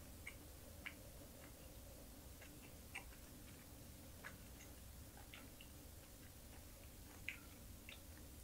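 Scattered sharp clicks of wooden chopsticks tapping and picking through dried anchovies on a ceramic plate, about ten light, irregular ticks over a near-silent background.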